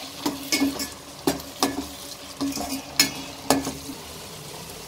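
Slotted steel spoon stirring sliced mushrooms in a stainless steel pot, clinking against the pot's side about seven times, over the faint sizzle of the masala frying. The clinks stop near the end, leaving only the sizzle.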